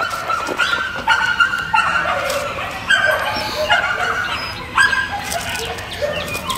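Dogs whining and yipping: a series of high, drawn-out cries, some overlapping.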